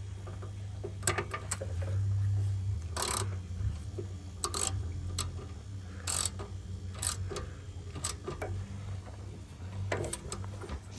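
Irregular metal tool clicks and short scraping strokes as the oil drain plug is screwed back into a Honda pressure-washer engine, over a low steady hum.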